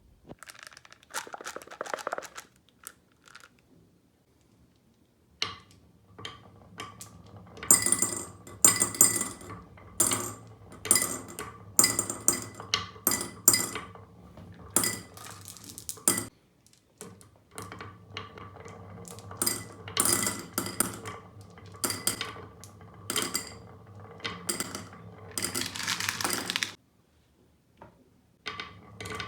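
Marbles rolling down a marble run track: a steady rolling rumble with many sharp clicks and clacks as they drop and knock against the track and each other. It begins with a few scattered clicks, grows dense after about five seconds, and stops briefly near the end.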